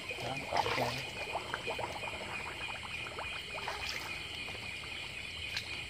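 Shallow water splashing and trickling as a man wades and feels about with his hands in the water at a muddy bank, with many small irregular splashes. A steady high-pitched background drone runs underneath.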